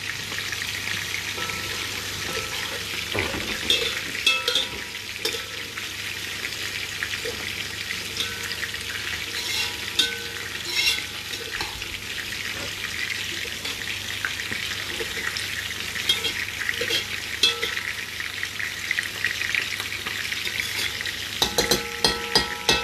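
Rice and green onions frying in a pot, a steady sizzle, while a spoon stirs and scrapes against the pot in short clicks. Near the end come a few sharper metal clanks.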